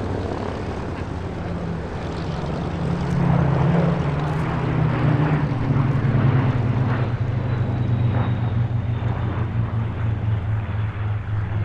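Rolls-Royce Merlin V12 piston engines and propellers of two Supermarine Spitfire Mk.Ia fighters and a Hawker Hurricane Mk.I flying past in formation: a steady engine drone that grows louder about three seconds in, its pitch falling slightly as the aircraft pass.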